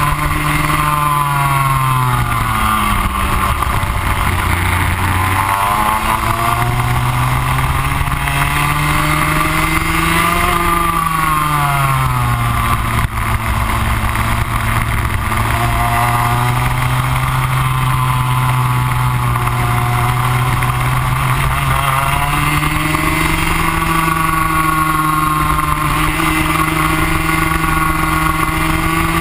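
Rotax Max 125 single-cylinder two-stroke kart engine heard on board at racing speed. The revs fall sharply just after the start to a low point a few seconds in, climb again, drop once more about eleven seconds in, hold steady for about ten seconds, then rise near the end as the kart brakes and accelerates through the corners.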